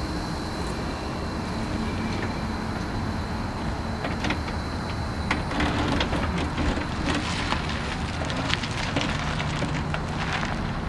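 Tyres of a slowly rolling electric-converted 1978 Porsche Carrera crackling and crunching over gravel and grit. The crackles grow denser from about four seconds in. There is no engine note, only a low steady rumble beneath, because the electric drive is nearly silent.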